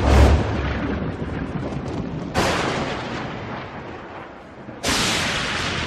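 Thunder-like boom sound effects: three sudden crashes about two and a half seconds apart, each trailing off in a long rumble. The first has the deepest low-end thud.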